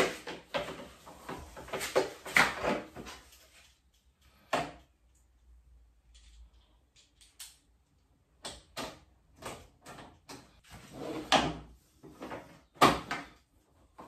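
Rustling of plastic packaging for the first few seconds, then a hand tool clicking, knocking and rattling against a motorcycle's metal rear luggage rack, with a single sharp knock a little before the middle and a run of louder knocks and clatter near the end.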